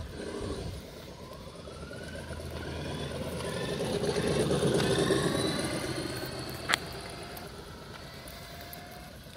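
Radio-controlled drag car with a Traxxas VXL brushless electric motor driving past on asphalt: a motor whine that glides up and down in pitch over tyre noise, growing louder to about halfway and then fading. A single sharp click sounds about two-thirds of the way through.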